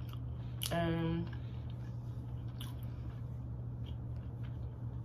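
A person chewing food with small wet mouth clicks, and a short closed-mouth 'mmm' hum about a second in. A steady low hum sits underneath.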